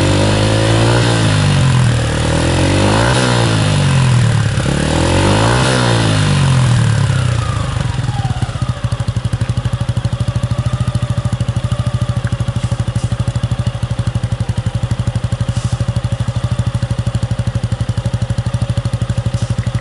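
Suzuki Gixer 150's single-cylinder engine through a BEAMS CORSA-EVO II stainless full exhaust, blipped up in revs three times, then settling about eight seconds in to a steady, evenly pulsing idle.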